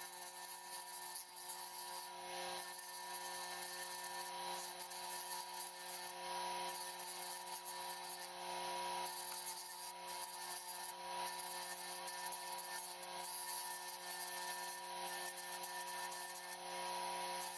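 Workshop machine running: a steady whine of several held tones over a constant hiss with a fine crackle.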